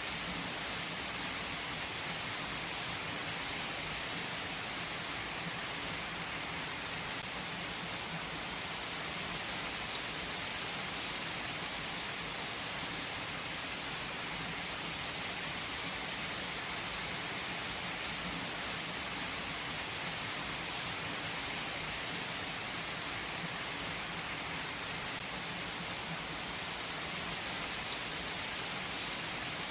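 Heavy rain falling steadily on trees and foliage, an even hiss of rain with scattered drop ticks.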